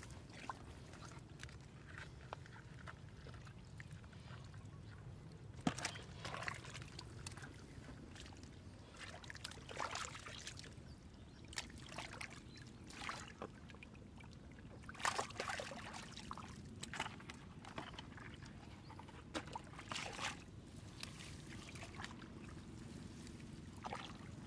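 Shallow water splashing and sloshing in short, irregular bursts, with a sharp knock about six seconds in.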